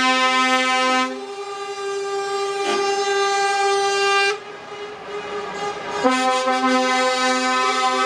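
Lorry air horns blaring, several horn tones held together. The lowest tone drops out after about a second and the rest cut off about four seconds in. Another blast of horns starts about six seconds in.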